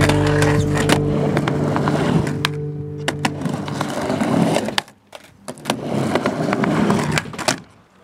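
A music track's held last chord fading out over the first few seconds, then skateboard wheels rolling on a ramp with sharp clacks of the board, dropping out briefly about five seconds in and again near the end.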